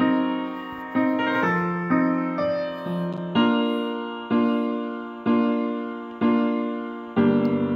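Solo piano playing slow chords, one struck about every second and left to ring and fade. About seven seconds in, quicker repeated notes come in.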